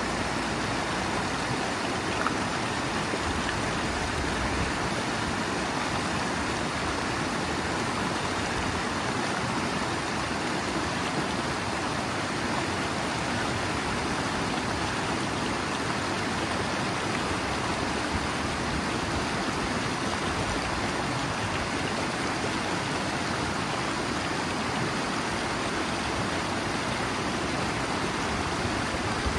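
Steady rush of river water pouring over a low waterfall of rock ledges in a mountain river, churning into white water below.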